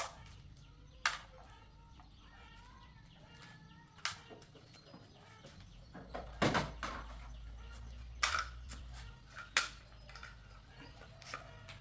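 Chickens clucking faintly over a low steady hum, with several sharp knocks scattered through, about five in all.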